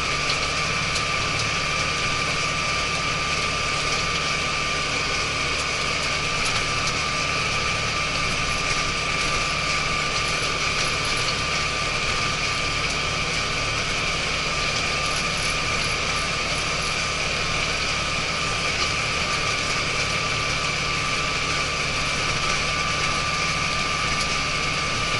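Cab-interior sound of an ISEKI TJV semi-crawler tractor driving along at a steady speed: the diesel engine and drivetrain run evenly under a constant high-pitched whine. The owner finds the crawler-track noise a little concerning.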